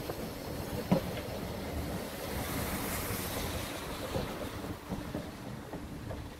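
Narrow-gauge Hunslet 2-6-2T steam locomotive moving off slowly, its soft irregular exhaust beats heard under strong wind noise on the microphone. There is a sharp knock about a second in, and a hiss swells between about two and three and a half seconds.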